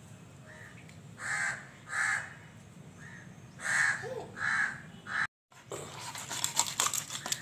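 A crow cawing: about five short harsh caws, mostly in pairs. After a moment of silence, a quick run of clicks and scrapes as a knife cuts into a raw whole chicken.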